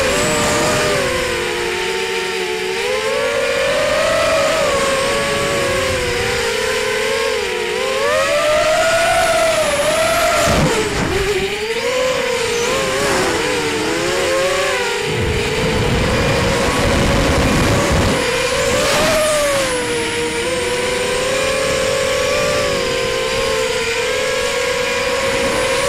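Onboard recording of a ZMR250 quadcopter's four T-Motor 1806 2300kv brushless motors spinning 5x4.5 props: a buzzing whine of several close tones that swoops up and down with the throttle through the flight. Wind rumbles on the microphone in the second half.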